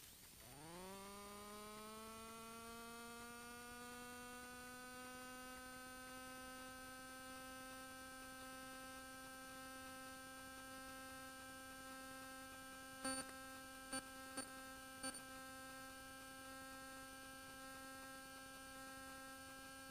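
Faint electrical whine in the cockpit intercom audio. Its pitch sweeps quickly up as the Cessna 150's engine starts and then holds steady at idle. Four short clicks come about two-thirds of the way through.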